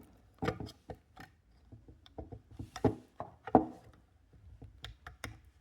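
Scattered small clicks and knocks of an Instabox i30 alarm clock's plastic parts being handled as its battery connector is plugged back in and the case is fitted back together, with two louder knocks near the middle.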